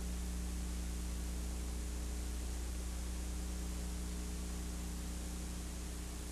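Steady hiss with a low mains hum underneath, the background noise of an old VHS tape transfer; no other sound stands out.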